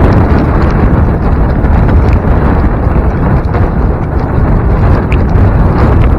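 Strong blizzard wind buffeting the microphone: a loud, steady, rumbling roar with a few faint ticks scattered through it.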